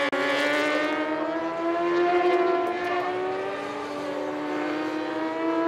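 Racing sport motorcycle engines at high revs, their pitch rising, easing off and rising again with the throttle as the bikes accelerate through the corners. A momentary dropout just after the start.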